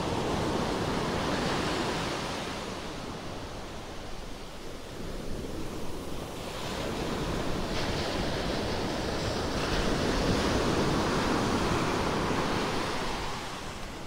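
Ocean surf washing up the beach, the foamy swash rushing over the sand and swelling twice as waves run in.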